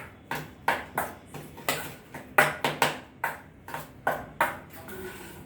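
A spoon clinking against a metal vessel while mixing the spiced potato sandwich filling: about a dozen sharp, ringing clinks, two to three a second, stopping near the end.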